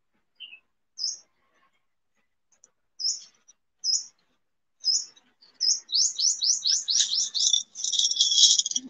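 Bird chirping: single short high chirps a second or so apart, then a quick run of about ten sweeping notes that runs into a fast trill near the end.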